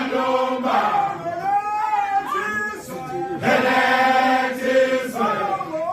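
A group of men chanting a Zulu song together in unison, with long held notes.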